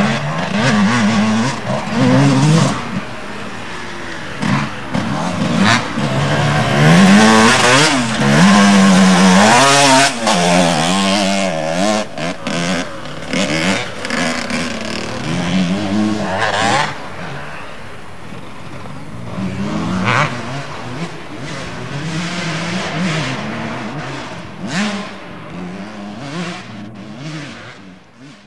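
Motocross motorcycle engines revving up and dropping back as the bikes race round the track, their pitch rising and falling again and again. Loudest about seven to ten seconds in, fading out near the end.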